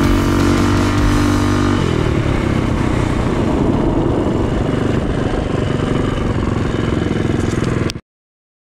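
Minibike's small single-cylinder engine running at a steady high speed, then about two seconds in the steady note breaks into a lower, uneven running as the bike slows. The sound cuts off abruptly near the end.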